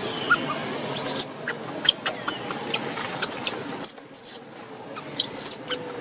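Newborn long-tailed macaque giving short, high-pitched squealing cries: one about a second in, one near four seconds, and a longer one about five seconds in.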